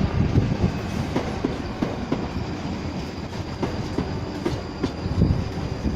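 Passenger train running past, with a steady low rumble and wheels clicking over rail joints.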